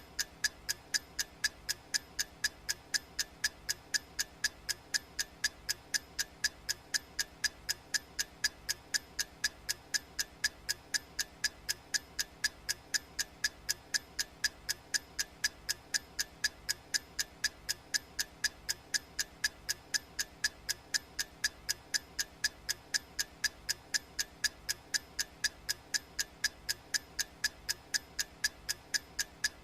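Clock-ticking sound effect of a countdown timer: sharp, evenly spaced ticks repeating steadily.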